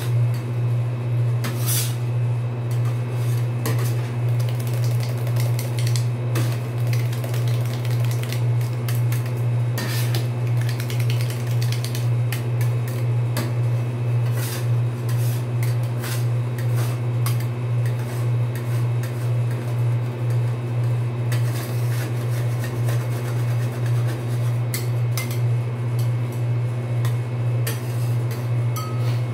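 Two metal spatulas chopping, tapping and scraping ice-cream mix on a stainless-steel cold plate, with scattered sharp clinks of steel on steel as the mix is worked while it freezes. A steady low hum runs underneath and is the loudest sound.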